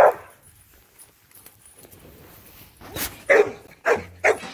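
Dog barking: one loud bark at the start from an American Staffordshire terrier, then a quick run of three or four barks about three seconds in.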